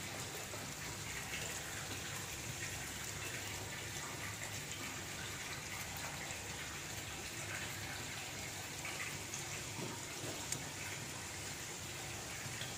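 Doughnuts frying in hot oil in a pan, a steady sizzle with fine bubbling.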